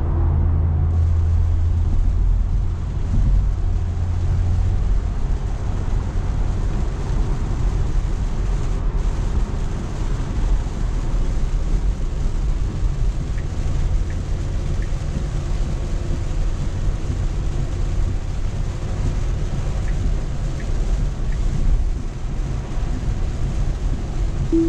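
Steady road and tyre noise heard inside a Tesla's cabin on a wet road in heavy rain, with a deep rumble underneath.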